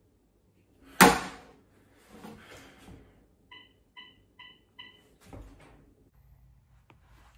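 A loud sharp knock about a second in, then four short, identical electronic beeps about 0.4 s apart as buttons are pressed on a handheld phone, then a dull thud.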